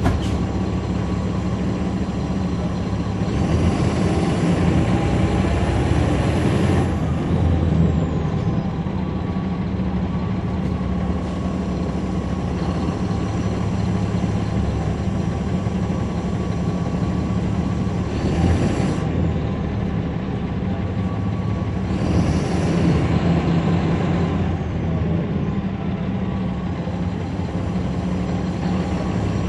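A transit bus's Caterpillar C13 diesel engine running, heard from the back seats near the rear engine, a steady low hum. A hiss reaching high up swells in several times: about three seconds in for a few seconds, ending in a falling whistle, and again twice in the second half.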